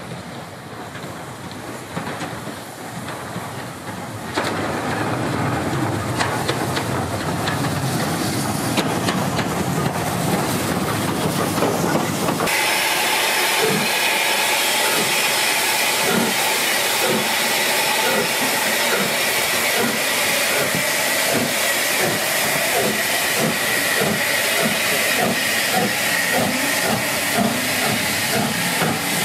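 Three-cylinder Schools class 4-4-0 steam locomotive No. 925 Cheltenham working past close by with its coaches. Steam hisses loudly from the open cylinder drain cocks over a steady rhythmic exhaust beat. The sound is more distant at first and steps up in loudness a few seconds in and again about halfway through.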